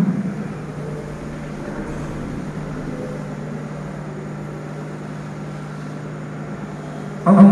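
Imam's drawn-out sung takbir ('Allahu akbar') fading out just after the start and beginning again near the end, marking the congregation's moves between bowing and prostration. Between the two calls, a steady low hum with faint room noise.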